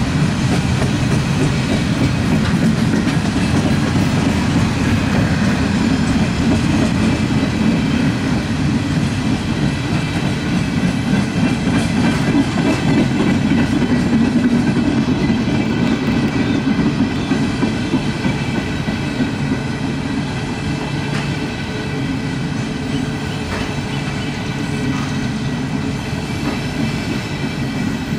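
Freight cars of a passing CSX mixed manifest train rolling by close: a steady rumble of steel wheels on the rails, with faint high ringing tones and occasional clicks. It eases off slightly in the second half.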